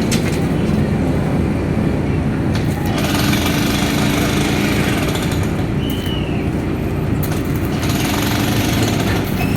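Electric stick-welding arc from a 350A inverter welder, crackling steadily and continuously without a break.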